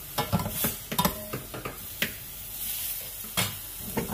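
Slotted metal spoon scraping and knocking against a stainless steel pan as cabbage, peas, carrots and chicken are stir-fried, with irregular sharp clacks over a soft sizzle.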